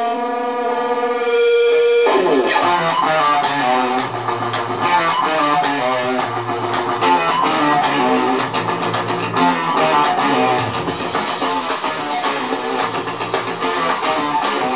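Band music with guitar and drums played from a record on a Pioneer PL-71 turntable through a Philips 22RH590 amplifier and a pair of wooden bookshelf speakers, heard in the room. A held chord opens, and the drums and band come in about two seconds in.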